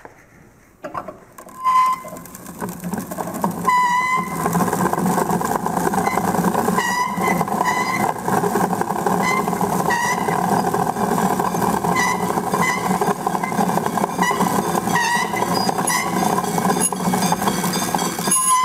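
Wimshurst machine whirring and rattling as its disc is cranked up to speed over the first few seconds, then running steadily. Short metallic rings come every second or few, the hanging metal ball of the Franklin's bells striking the charged and grounded plates.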